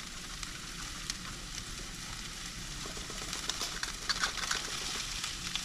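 Chopped vegetables sizzling steadily in mustard oil in a steel kadai, with faint rasps of boiled potato being grated over the pan in the second half.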